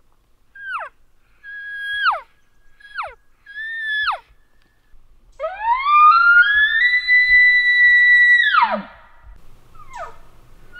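Elk bugle call blown through a bugle tube: four short, falling mews, then a bugle that glides up into a high whistle, holds for about three seconds and breaks off downward, followed by one more short falling note near the end.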